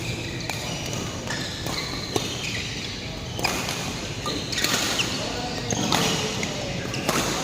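Indoor court game in progress: repeated sharp hits and thuds, with brief high squeaks of shoes on the court floor, over background voices echoing in the hall.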